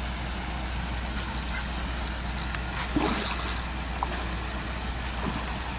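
A large hooked carp splashing at the surface once, about three seconds in, over a steady low background rumble.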